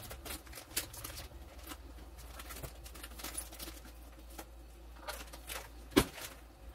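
Plastic bag of penne pasta crinkling and rustling as it is handled and opened: a run of irregular small crackles, with one sharp, loud crackle about six seconds in, over a low steady hum.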